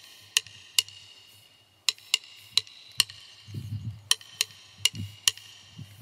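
Sparse, sharp drumstick strikes on a small cymbal mounted over a snare drum, each hit leaving a short metallic ring, in an uneven rhythm with a pause about a second in. A soft low rumble comes a little past the middle.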